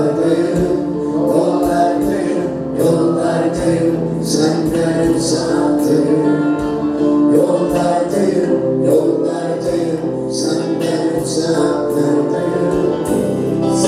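Live band music: a man sings a Turkish song into a microphone over electric bass, electric guitar and keyboards, with a steady beat.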